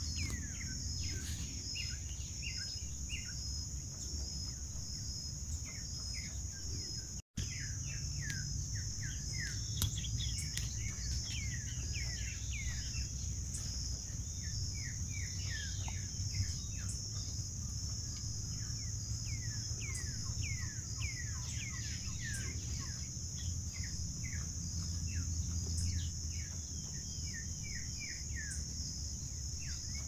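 A steady, evenly pulsing high insect trill, with runs of short, downward-sliding chirps from small birds over it and a low rumble underneath. The audio cuts out for an instant about seven seconds in.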